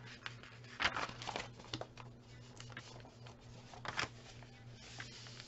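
Paper envelopes being pressed and smoothed flat by hands on a cutting mat: soft rustling and sliding of paper, with a few sharper taps and crinkles, over a low steady hum.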